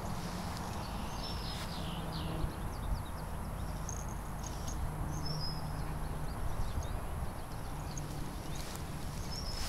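Outdoor ambience: a steady low rumble with short high chirps, like small birds, now and then. A brief bump right at the end.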